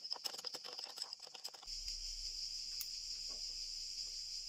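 Steady high-pitched chirring of crickets, with a quick run of light clicks during the first second and a half.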